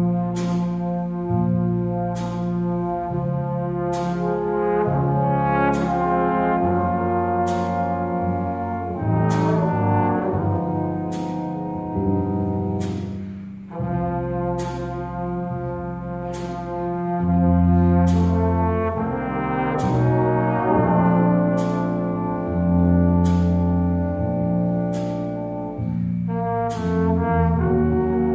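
Student jazz big band playing a slow ballad: saxophones and brass in sustained chords over piano, guitar and drum kit, with cymbal strokes marking a slow, even beat. The horns break off briefly about halfway through, then come back in.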